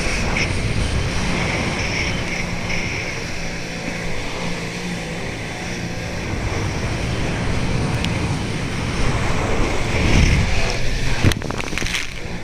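Jet ski engine running steadily under way, with wind and rushing water noise over the camera's microphone.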